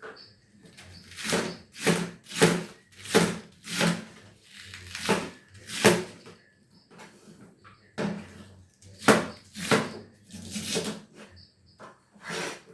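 A kitchen knife slicing through cabbage on a wooden chopping board, in repeated rasping strokes about one to two a second, with a short pause just past the middle.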